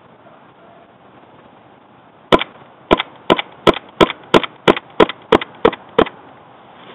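Airsoft pistol fired about eleven times in quick succession, roughly three sharp cracks a second, starting a little over two seconds in and stopping about a second before the end.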